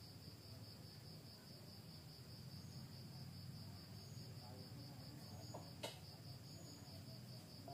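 Faint, steady trilling of crickets, with a low hum underneath and a single sharp click about six seconds in.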